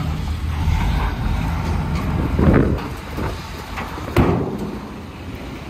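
Heavy vehicle engine running with a steady low rumble, a surge of noise about two and a half seconds in, and a sharp bang about four seconds in.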